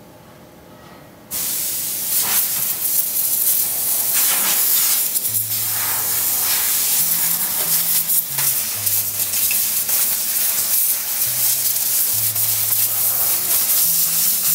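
Compressed-air gun hissing over metal racket-frame moulds, starting suddenly about a second in and running on with small surges. A background music bass line comes in about five seconds in.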